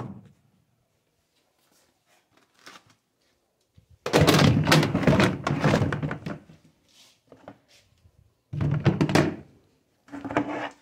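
A plastic bucket of cleaning things knocking and scraping against a plastic tub as it is set inside. There is a quiet start with a few small clicks, then a loud clatter about four seconds in and two shorter bursts of knocking near the end.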